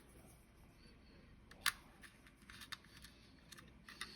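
Faint clicks and ticks of small screws and the plastic housing of a video doorbell being handled while its screws are taken out, with one sharper click a little before two seconds in.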